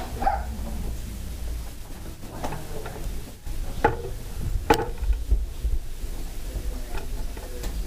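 A dog barking a few times, short single barks spread a second or more apart, over a low rumble.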